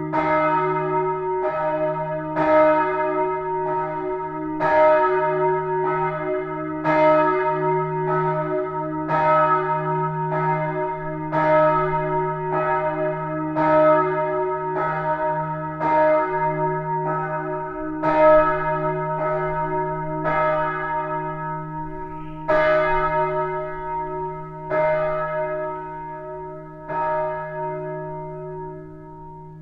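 Church bells of the Neumünster in Würzburg ringing together, overlapping strikes about once a second over a steady low hum from a large bell. Over the last several seconds the strikes come further apart and fade.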